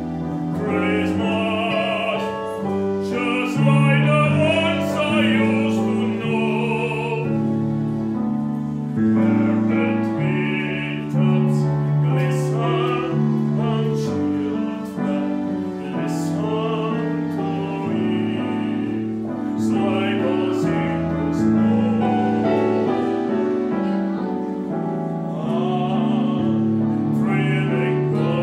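A male soloist sings a slow classical-style song in a full operatic voice, accompanied by sustained chords on a digital piano.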